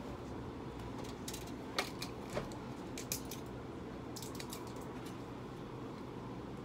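Scattered light clicks and taps, clustered in the middle few seconds, over a steady low hum.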